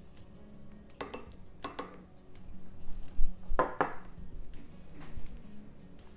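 Two light clinks about a second apart, then a louder knock with a short rattle about three and a half seconds in: wax-pastel crayons and a sharpener being handled and set down on a desk.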